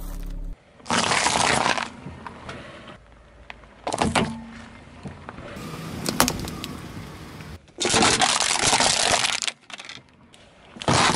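A car tyre rolling over and crushing objects one after another: a foil bag of potato chips, a plastic toy car and aluminium soda cans. It comes as several separate bursts of crunching and crackling, three long ones and a short sharp crack in between, with quieter rolling stretches between them.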